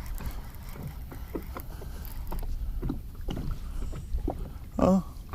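Wind rumbling on the microphone aboard a fishing boat, with scattered light knocks and rattles of tackle and boat as a small bass is reeled in and landed. A brief louder pitched sound comes near the end.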